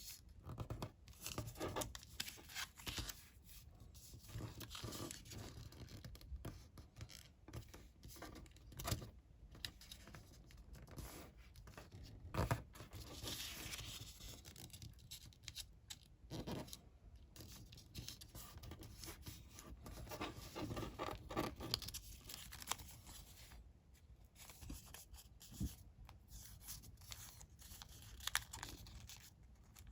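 A sheet of coloured origami paper being folded by hand, with an irregular run of rustles, scrapes and creasing sounds as the folds are pressed. A sharp crackle of paper about halfway through is the loudest moment.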